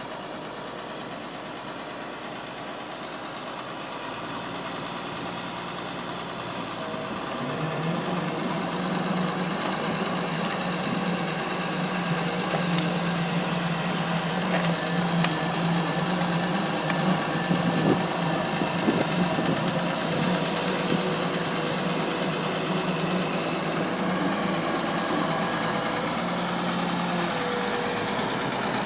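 Diesel engine of a Komatsu PC220LC-3 hydraulic excavator running, getting louder over the first several seconds and then holding steady, with a few sharp knocks in the middle.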